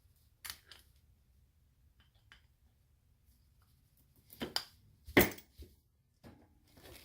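Scattered clicks and knocks from handling the shift lever of a 1995 Toyota Tacoma manual transmission while taking off the worn bottom bushing, with one sharp snap about five seconds in.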